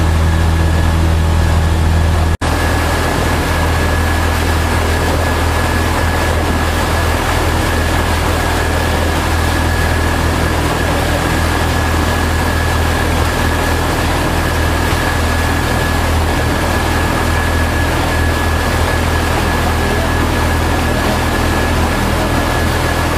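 Steady, loud drone of an engine running at a constant pace, with a low hum and a thin steady whine above it. The sound breaks off for an instant about two seconds in and resumes unchanged.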